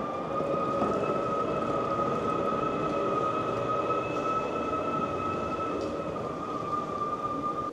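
Battery-electric tractor driving, its electric drive giving a steady high whine over a rushing noise.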